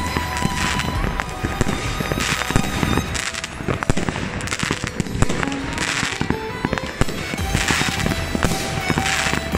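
Many fireworks going off at once: a dense, unbroken barrage of bangs and pops, with several louder bursts of crackling.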